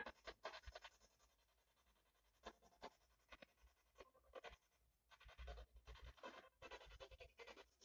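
Near silence broken by faint, short rustles and scrapes, more of them in the second half.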